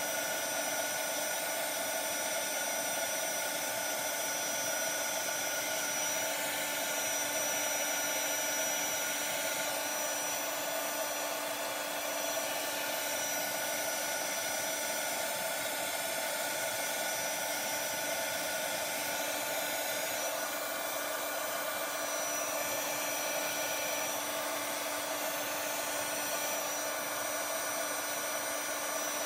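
Embossing heat tool running steadily: a rush of hot air with a few constant whining tones, melting embossing powder on stamped cardstock.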